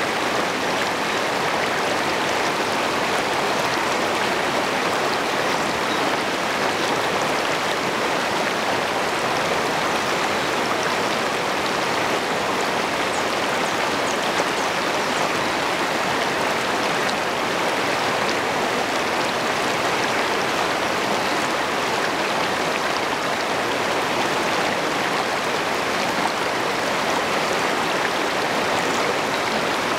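Shallow river rapids rushing over rocks, a steady wash of water heard from just above the surface, flecked with small splashes.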